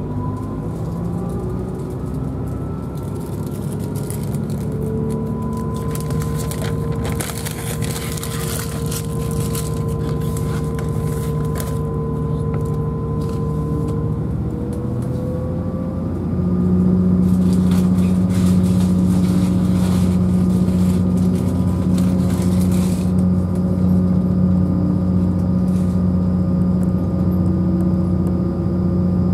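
Class 180 diesel multiple unit heard from inside the carriage, pulling away from a station: the underfloor Cummins QSK19 diesel engine and transmission drone, with their pitch slowly rising as the train gathers speed. About halfway through the drone steps up louder and deeper as more power is applied, with patches of rattling and clicking over the running noise.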